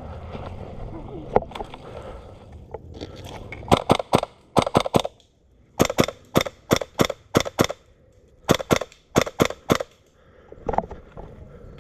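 Airsoft gun firing about twenty sharp shots in three quick strings with short pauses between them, after a few seconds of rustling movement.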